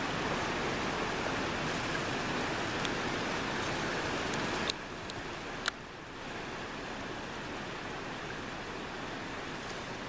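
Steady rushing noise of flowing water. There are two sharp clicks about five and six seconds in, and the noise drops suddenly to a lower level at the first click.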